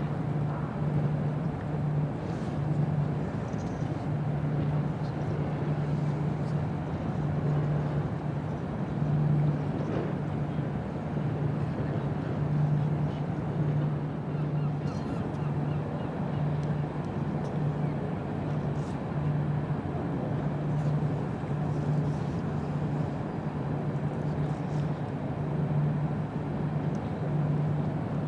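Low, steady ship engine drone carried across the harbour, a hum that swells and fades about every second or so.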